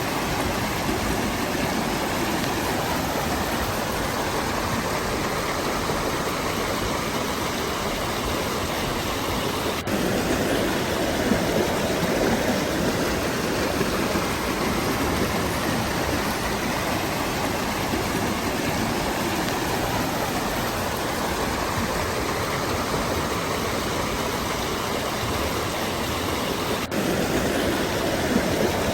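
Waterfall and stream water rushing steadily. The sound shifts abruptly about ten seconds in, becoming a little louder and fuller, and again near the end.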